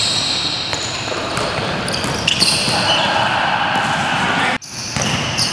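Basketball practice on an indoor court: a ball bouncing on the floor and basketball shoes squeaking as players run, over general hall noise. The sound drops out for an instant about four and a half seconds in, at an edit.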